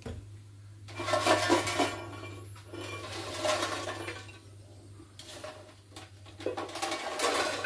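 Hot, freshly air-fried chips sizzling and rustling in the air fryer basket as they are handled, in several short bursts of hiss, over a steady low hum.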